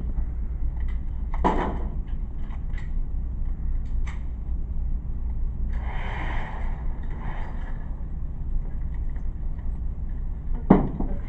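A few knocks and clicks, the loudest near the end, over a steady low hum.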